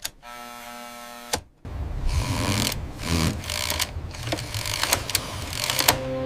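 Telegraph key and sounder clattering with sharp clicks, after a steady pitched tone that stops with a click about a second and a half in.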